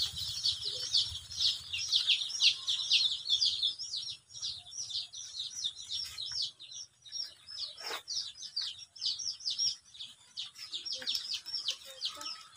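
A large brood of young chicks peeping: a dense chorus of short, high, falling peeps that thins and fades over the second half. A single brief knock comes about eight seconds in.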